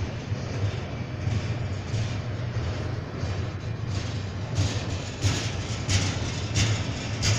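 Freight train rolling past with a steady low rumble and a regular clack of wheels over the rail joints. The clacks turn sharper and louder about halfway through. No horn sounds.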